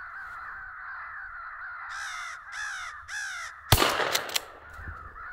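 Crows cawing in a steady chorus, with three loud caws close by about two seconds in, then a sharp shotgun blast a little later, followed by a few smaller cracks.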